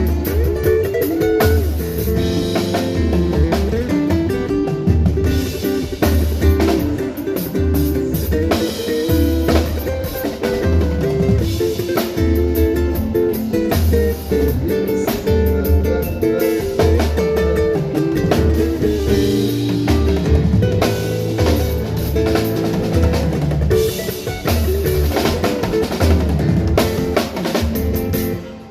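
Live band sound check playing an instrumental pagode groove: drum kit with a steady low beat, under guitar lines.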